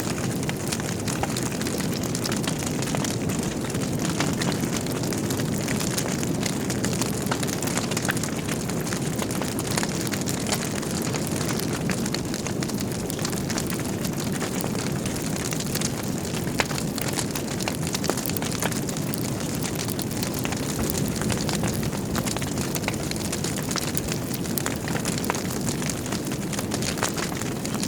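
Logs burning in a fireplace: a steady low roar of flames with many small crackles and pops scattered throughout.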